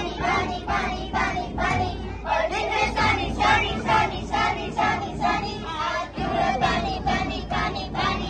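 A group of children singing together in unison, in a steady rhythm.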